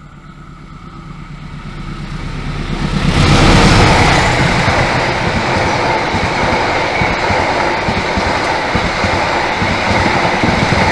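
Diesel-hauled Indonesian passenger train approaching and passing at speed, about 85–100 km/h. The locomotive's low hum grows louder over the first three seconds. Then a sudden loud rush of wheels on rail comes with dense rapid clatter that keeps going as the coaches go by.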